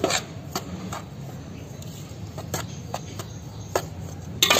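A metal spoon stirring a heap of spice powder in a large metal bowl, with irregular light clinks of the spoon against the bowl and a louder knock near the end.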